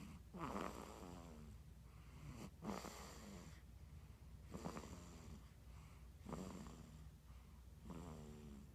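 Five-week-old baby snoring in sleep: a faint, squeaky snore with each breath, about every two seconds, each one sliding down in pitch.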